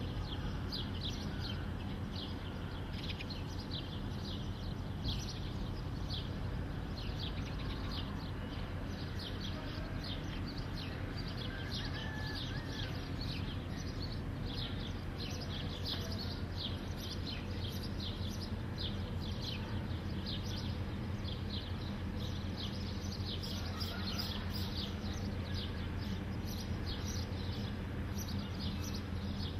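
Small birds chirping, many short high chirps repeating throughout, over a steady low background rumble.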